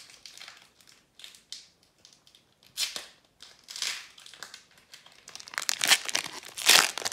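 Foil wrapper of a Magic: The Gathering booster pack being torn open by hand: a few soft rustles at first, then loud crinkling and tearing from about five and a half seconds in.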